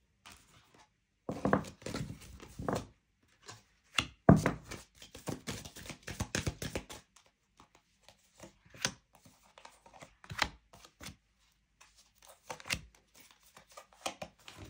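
Oracle cards being handled and laid down one after another: a run of irregular taps, flicks and card-on-card slides.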